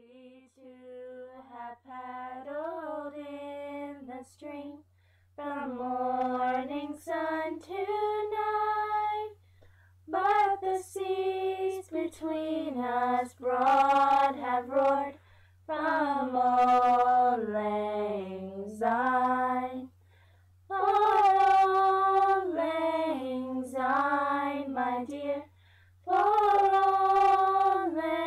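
Girls' voices singing a song together unaccompanied, in phrases of a few seconds broken by short pauses, over a steady low hum.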